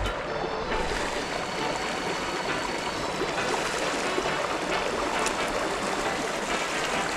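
Stream water running steadily, an even rushing noise.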